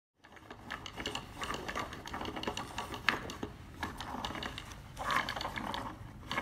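Cardboard automaton being worked by its crank: the mechanism clacks and rattles in a quick, uneven run of small clicks and knocks, with one sharp click about three seconds in.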